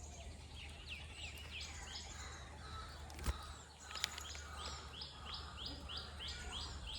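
A bird calling a series of short down-slurred notes that come faster, about two a second, in the second half, over the steady hiss of rain falling on the forest. Two sharp ticks sound near the middle.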